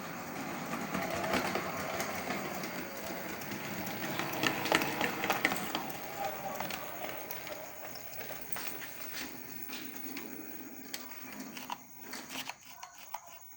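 DMR kit-built class J17 model locomotive running on DCC along the track: its small motor whirring with a rattle of wheels clicking over rail joints, growing quieter over the last few seconds as it runs away.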